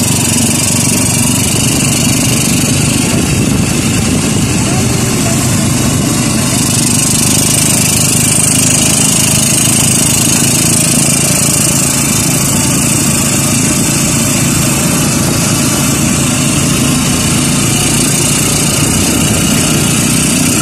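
Motorcycle tricycle's engine running steadily while under way, with wind and road noise, heard from inside the sidecar.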